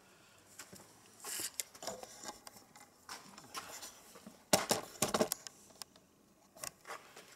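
Camera being picked up and repositioned by hand: scattered clicks, knocks and rubbing, with the loudest cluster of clattering about two-thirds of the way through.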